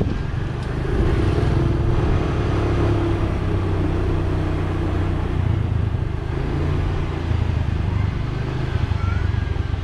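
Motorbike engine running steadily while riding along a town street.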